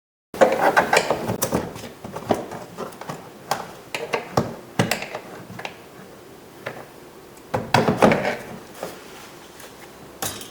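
Hand work on a car's interior door panel: a run of sharp clicks, knocks and plastic rattles, busiest in the first two seconds and again about eight seconds in.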